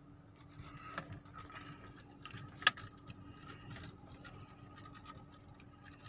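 Low steady hum inside a parked car's cabin, with faint handling noises, a small tick about a second in and one sharp click a little before the middle.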